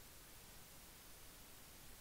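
Near silence: a faint, steady hiss of the recording's noise floor.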